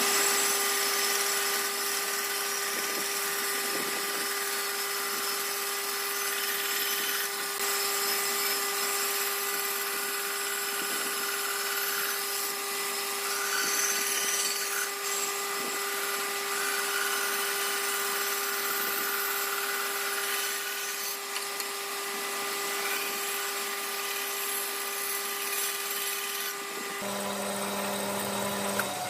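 Electric power tool running at a constant speed while working wood: a steady high motor whine over rough cutting noise. It cuts off about 27 seconds in, leaving a lower hum for a couple of seconds.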